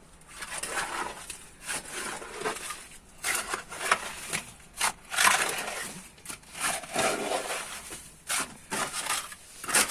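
Irregular scraping and crunching of earth and stones as the cave floor is dug and cleared, with a few sharp knocks.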